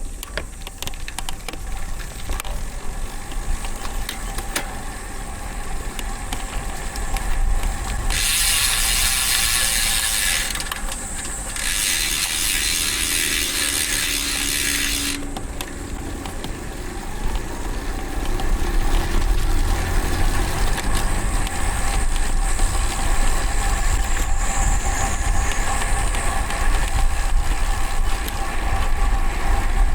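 Road bike's DT Swiss ARC1100 rear hub freewheeling with a fast ratchet buzz as the bike coasts, over steady low road and wind rumble. Two bursts of loud hiss come about eight and twelve seconds in, each lasting two to three seconds.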